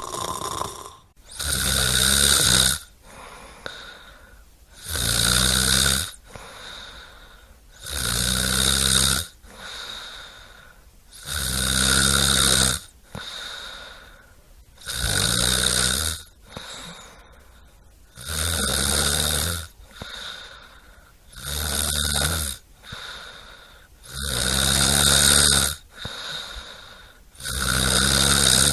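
Someone asleep snoring rhythmically: a loud, low snore about every three seconds, nine in all, with quieter breathing between the snores.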